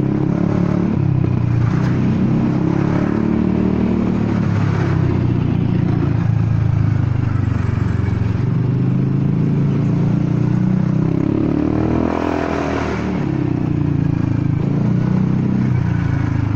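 Honda Forza 300 scooter's single-cylinder engine running at low speed through a loud, broken exhaust. Its note swells and falls once about three-quarters of the way through.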